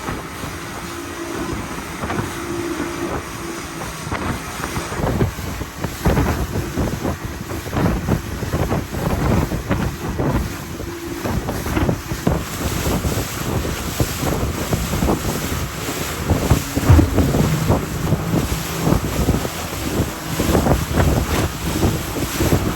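Wind buffeting the microphone, with waves lapping and splashing around a small boat at sea.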